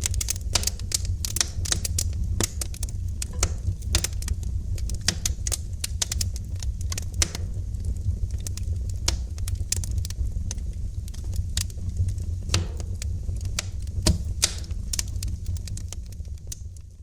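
Wood fire in a fireplace crackling, with many quick sharp snaps and pops over a steady low rumble of burning.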